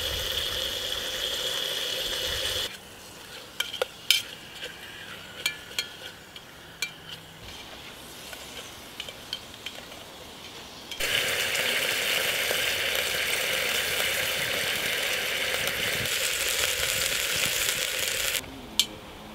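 Diced rabbit frying in oil in a steel billy can on a wood gas stove: a steady sizzle, loud at the start and again through the second half. In the quieter middle stretch there are a few light clinks of a utensil against the pot.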